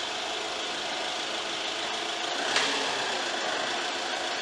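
Motorhome engine idling steadily, with one short clunk about two and a half seconds in.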